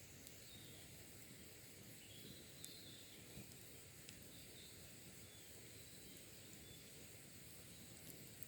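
Faint ambience of a campfire burned down to embers, giving a few soft ticks and crackles, with wild birds chirping briefly in the distance a couple of seconds in, over a steady faint hiss.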